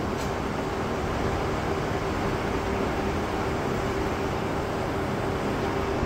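Steady hum and hiss of a large hall's room noise, with a faint steady tone underneath.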